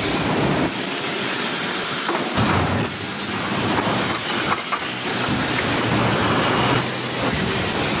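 Factory wire mesh welding machine running: a steady mechanical din with scattered clanks and a hiss, and a thin high whine that comes and goes.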